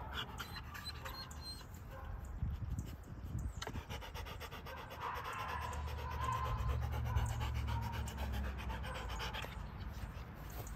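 A large dog panting with its mouth open, a quick, steady rhythm of breaths, with a low rumble underneath for a few seconds in the middle.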